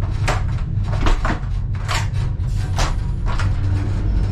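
Clicks and knocks of a train toilet door, its latch and lever handle being worked as it is opened, over the steady low rumble of the moving ÖBB Nightjet train.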